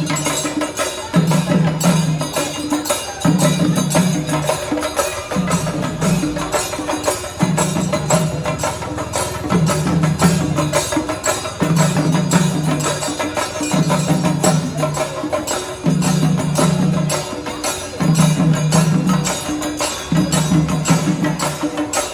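Traditional festival percussion music: fast, dense drum and jingling strokes, with a low held tone coming back about every two seconds.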